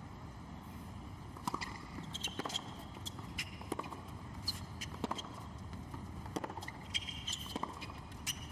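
Tennis rally on a hard court: a serve and a string of sharp racket strikes and ball bounces, with brief sneaker squeaks, over a steady low rumble of wind on the microphone.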